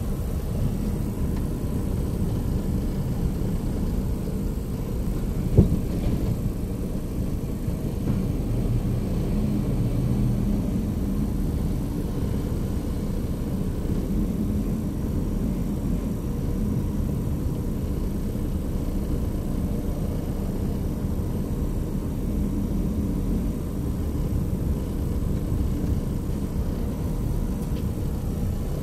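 Steady low rumble of a car's engine and tyres heard from inside the cabin while driving, with a single sharp knock about five and a half seconds in.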